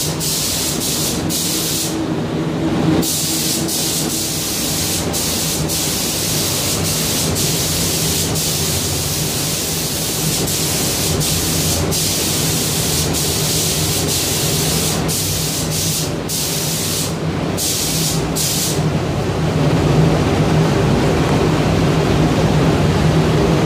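Compressed-air hiss of a gravity-feed paint spray gun spraying paint. The hiss cuts out briefly many times as the trigger is released between passes, with a longer pause about two seconds in. A steady low hum runs underneath and grows louder near the end.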